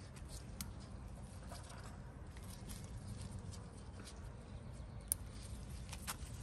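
Chilli plant leaves rustling with small sharp clicks and snaps as a gloved hand picks chillies off the stems, over a low rumble on the microphone.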